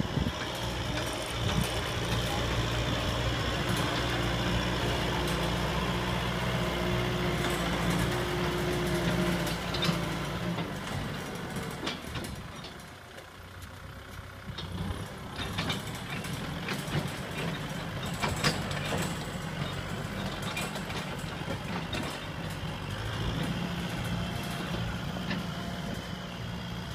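Kubota M6040 SU tractor's four-cylinder diesel engine running steadily under load as it drags a disc harrow through dry soil. The engine drone dips for a few seconds about halfway through, then comes back.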